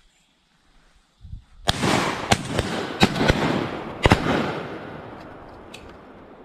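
A quick volley of shotgun shots, about five in two and a half seconds starting a second and a half in, each with echoes trailing off after it and fading out slowly.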